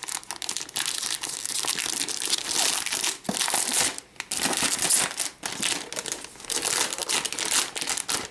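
Plastic wrapping crinkling and crackling as it is pulled off a boxed electronic device, with short bits of tearing, in uneven handfuls with brief pauses.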